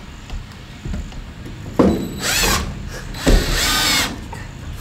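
Cordless drill driving screws into a wooden stud: two short runs of well under a second each, the motor's whine bending in pitch as it spins, with a click just before each run.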